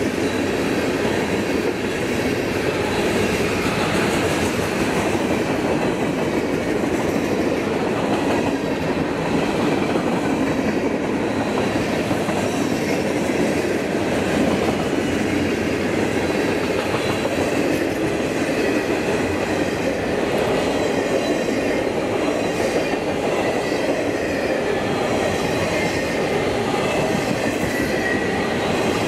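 Freight train cars rolling past: a steady rumble of steel wheels on the rails, from tank cars and then enclosed autorack cars.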